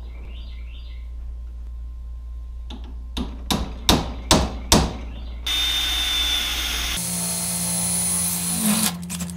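A run of sharp hammer taps on a punch, marking the hole centre in an aluminium flat-bar bracket held in a bench vise. About five and a half seconds in, a cordless drill starts and runs steadily with a high whine, drilling the hole through the aluminium.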